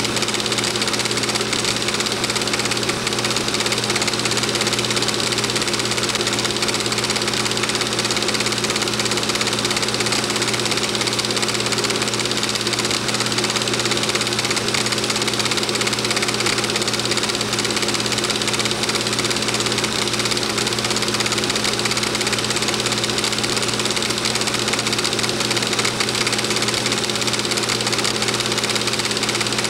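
Home-movie film projector running at a steady pace, a constant mechanical whirr with a low hum that never changes.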